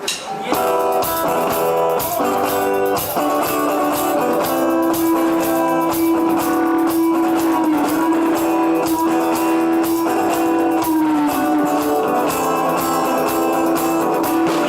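Rock music: guitars over a steady drum beat, with one long held note in the middle that bends down as it ends.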